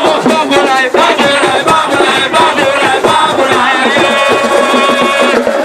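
Loud music: singing voices over dense, fast drumming.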